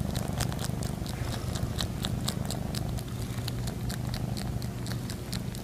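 A domestic cat purring close to the microphone: a strong, steady low rumble with many small clicks scattered over it.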